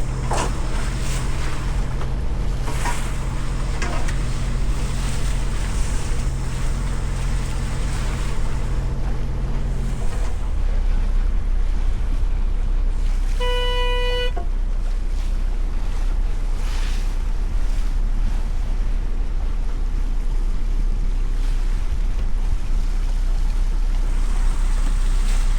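Boat engine running steadily, its note shifting lower about ten seconds in, with water noise around the hull. A single short beep sounds a little past the middle.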